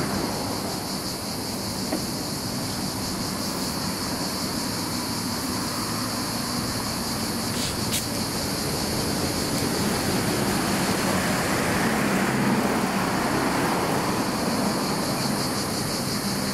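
Street traffic noise from passing cars, with a steady high hiss over it, rising a little in the middle.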